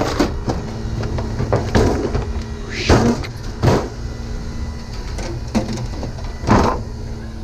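Steady low rumble of a running vehicle, with several sharp knocks or clanks; the loudest come about three seconds in and again near the end.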